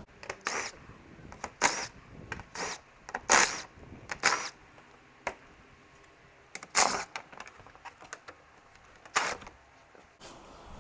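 Short bursts of a power tool running the undershield's fasteners out, eight or so separate spurts of a second or less each, some with a brief rising whine as the motor spins up.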